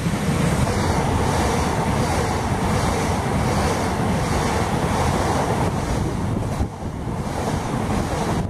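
Southeastern Class 395 Javelin electric train passing close at speed: a steady loud rush of wheels on rail and displaced air, with wind buffeting the microphone. The rush dips briefly about two-thirds of the way through.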